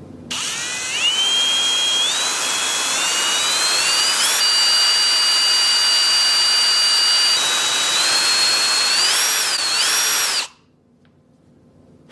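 Electric power drill running, boring a headphone-jack hole into an iPhone 7. Its whine climbs in pitch as it speeds up, holds steady for a few seconds, then dips and rises again before cutting off suddenly about ten and a half seconds in.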